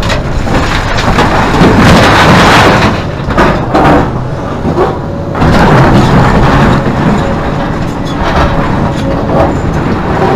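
Hidromek 390 hydraulic excavator, with its six-cylinder Isuzu diesel, working under load while loading a truck. The noise is loud and rises and falls with the work, swelling about two seconds in and again after about five seconds.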